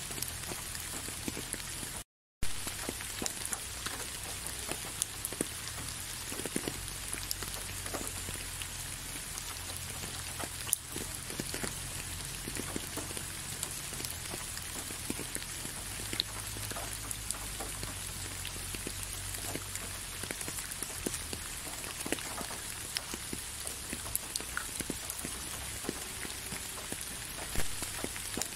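Steady rain falling, with many separate drops heard as small clicks over an even hiss. The sound cuts out completely for a moment about two seconds in, then resumes with a sharp click.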